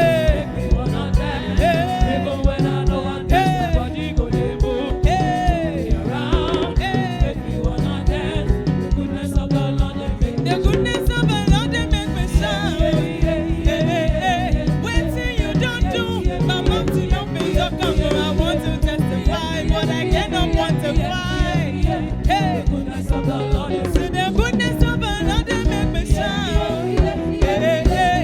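Live African gospel praise music from a band and choir: drums keeping a steady, driving beat under singing and instrumental lines.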